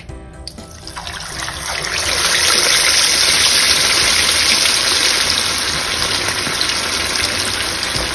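Hot oil sizzling as a whole masala-coated chicken goes into the pan. The sizzle starts about a second in, builds over the next second and then holds as a loud, steady bubbling hiss.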